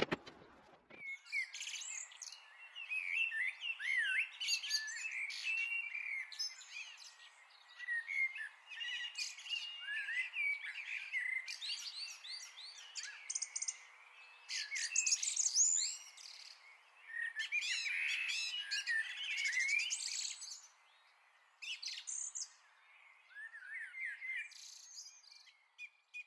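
Birdsong: a busy run of quick chirps and warbling phrases from about a second in, growing sparser with pauses near the end.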